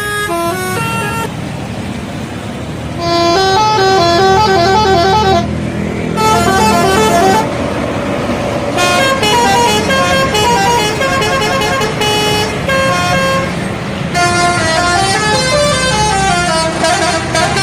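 Indonesian bus telolet horn playing quick melodic tunes of short stepped notes in several runs with brief gaps between, over the bus's engine running.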